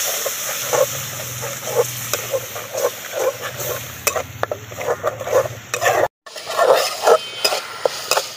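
Mustard paste thinned with water hitting the hot oil and spices in a metal karahi and sizzling, then a metal spatula stirring and scraping the masala around the pan in a steady rhythm of strokes.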